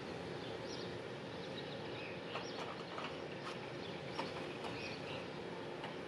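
Faint outdoor background noise with a few short, distant bird chirps scattered through it.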